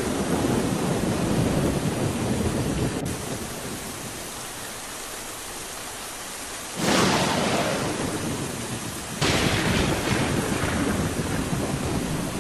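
Rain-and-thunder sound effect: a steady hiss of rain, with a thunderclap about seven seconds in and another about two seconds later, each rolling away over a couple of seconds.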